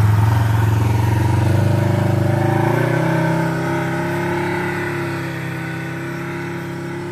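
Polaris RZR 1000 side-by-side's parallel-twin engine pulling away under throttle; its note steps up in pitch about three seconds in, then holds steady while it slowly fades as the machine drives off.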